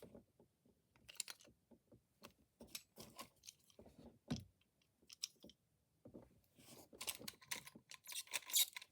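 Faint, scattered small plastic clicks and rattles, sparse at first and coming thicker and a little louder over the last two seconds: Beyblade tops and launchers being handled and readied for a launch.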